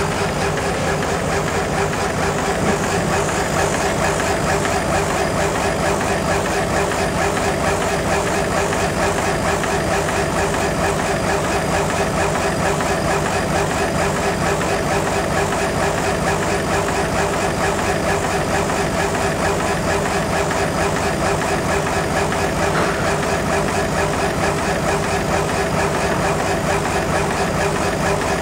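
80 W CO2 laser engraving machine running as its head traverses the work: a steady machine hum with a few constant tones, no pauses.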